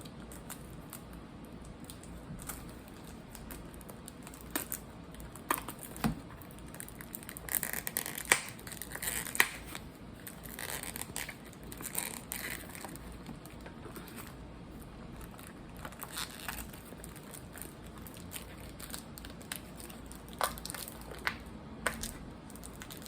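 A box of watermelon Dots candy being worked open by hand: packaging crinkling, tearing and clicking in scattered bursts, busiest near the middle, with pauses between.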